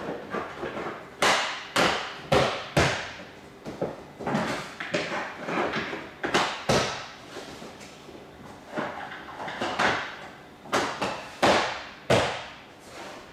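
Interlocking ABS plastic floor tiles being laid: a dozen or so sharp plastic knocks and clacks, irregularly spaced and some in quick pairs, as tiles are set down and pushed onto their clips.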